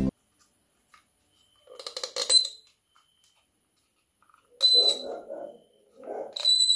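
Three short high-pitched squeaks over a rough, rattly lower sound, each lasting under a second, with near silence between them.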